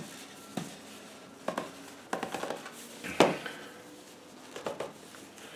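Knocks and scrapes of a particle-board form being worked down into a length of oven-softened 2-inch PVC pipe: a handful of short, separate sounds, the loudest about three seconds in.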